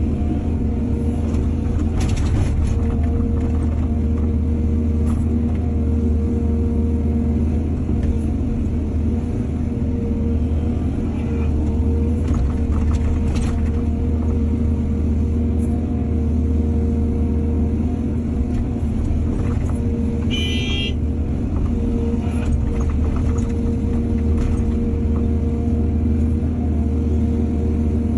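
Excavator's diesel engine running steadily, with a few faint knocks and a short high-pitched sound about two-thirds of the way through.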